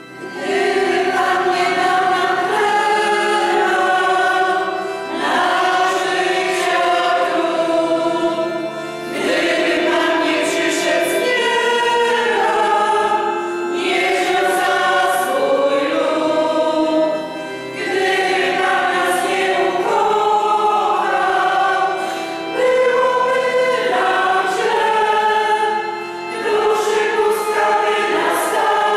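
A church choir singing a hymn in long held phrases of a few seconds each, with short breaks between them.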